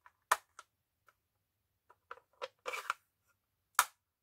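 Plastic stamp ink pad cases handled on a crafting table: a few short clicks and clacks as the pads are picked up and set down, the sharpest about a third of a second in and another near the end.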